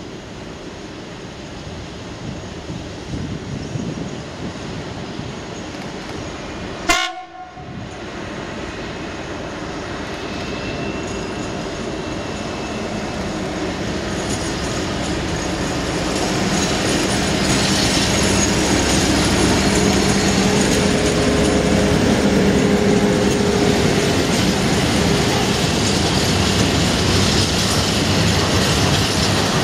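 Colas Rail Class 56 diesel locomotive 56113, with its sixteen-cylinder Ruston engine, working a freight train as it approaches and passes. The engine and rolling train grow steadily louder through the first half, then hold steady as the wagons rattle by. There is a single sharp click about seven seconds in.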